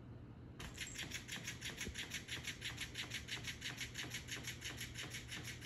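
Electric flopping fish cat toy starting up about half a second in, its motor flapping the plush tail against the hardwood floor in a rapid, even rhythm of about seven strokes a second.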